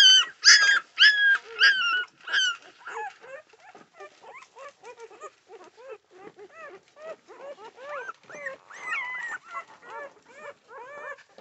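A litter of newborn American Pit Bull Terrier puppies, a few days old, squealing and whimpering. A rapid run of loud, high squeals comes in the first couple of seconds, then quieter, lower whimpers from several pups overlap for the rest.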